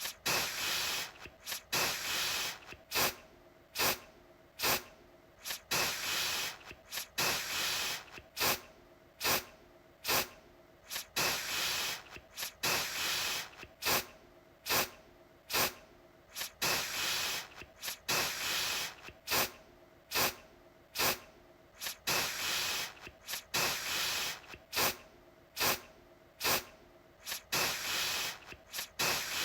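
Aerosol deodorant can spraying in repeated bursts: quick short spurts alternating with longer hissing sprays of about a second.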